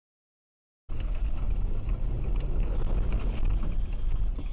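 Silence for about the first second, then a car's running and road noise picked up by a dash cam's microphone: a steady low rumble with faint scattered ticks.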